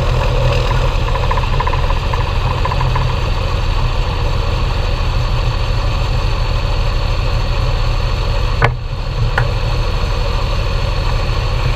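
Belarus 1221.3 tractor's diesel engine running steadily, with two sharp clicks about nine seconds in, after which the engine sound is a little quieter.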